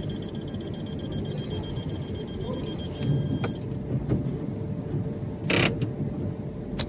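Car cabin sounds in a just-parked car: a low steady rumble with a thin high chime that stops about halfway through. Then come a few sharp clicks and a short rush of noise.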